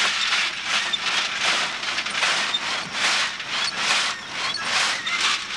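Gravel being hand-sieved for diamonds: stones rattling in the shaken sieve and pouring through onto the heap, a steady hiss that swells about twice a second with each shake.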